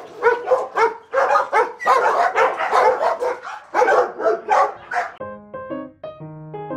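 Dog barking rapidly and repeatedly, several barks a second, until about five seconds in, when piano music takes over.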